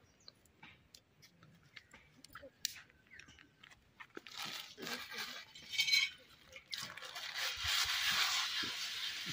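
A metal roti griddle (tawa) being scrubbed with a cloth on the ground: rough, gritty rubbing strokes that start about four seconds in and grow louder, after a few faint clicks and taps.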